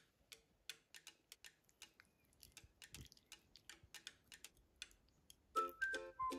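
A run of short, sharp clicks, about three or four a second and unevenly spaced. Plucked-string music starts near the end.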